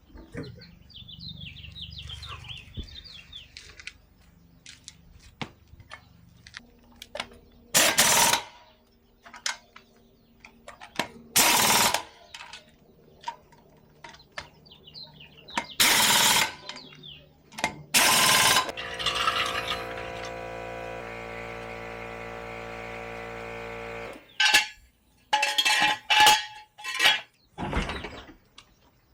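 Impact wrench run in several short, loud bursts of about a second each, working suspension fasteners during a shock and strut replacement. Partway through, a steady mechanical hum runs for about five seconds.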